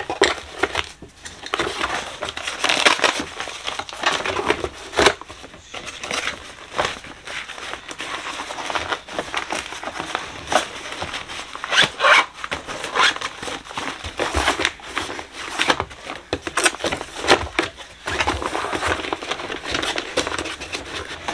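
Rustling and crinkling of a fabric makeup travel bag being handled and pushed into the back of a drawer of makeup, with many small clicks and knocks scattered throughout.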